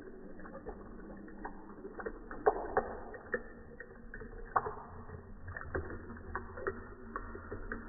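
Running water splashing: a steady watery wash with irregular sharp drips and plops, two of them standing out louder.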